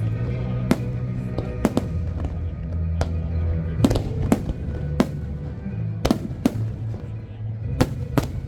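Fireworks bursting overhead in sharp, irregularly spaced bangs, about ten of them, over steady music.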